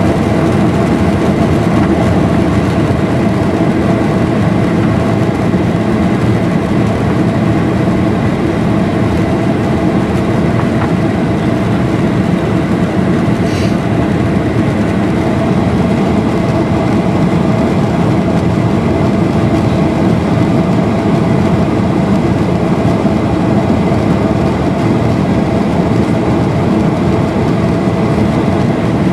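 Cabin noise of a Boeing 737-800 climbing out after takeoff: its CFM56-7B engines and the airflow make a loud, steady hum, with a couple of steady tones running through it.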